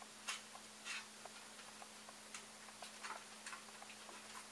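Faint, irregular small clicks and taps from hands handling the wiring and plastic parts of a 3D printer frame, over a faint steady hum.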